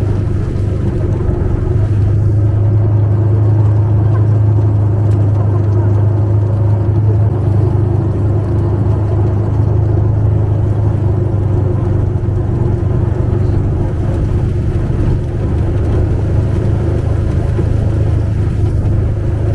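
ATV engine running steadily with a low hum, the machine moving along with the sled-dog team.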